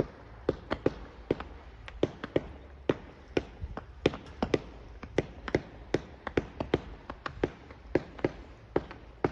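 Fireworks going off: a steady, irregular string of sharp pops, about three a second.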